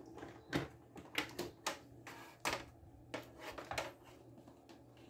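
Irregular sharp clicks and taps, about a dozen spread unevenly, as a power plug and its cord are handled and pushed into a wall socket.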